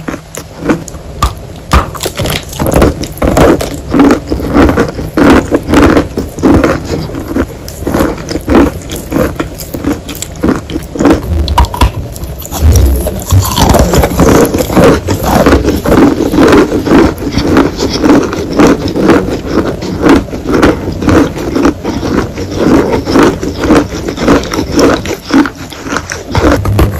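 Close-miked chewing of a large bar of chalk: wet crunching and mouth smacking in a steady rhythm of roughly two chews a second.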